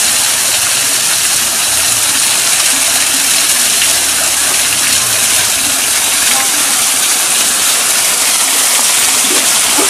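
Small waterfall spilling off a rock ledge, a steady rush of falling water splashing onto the rock below.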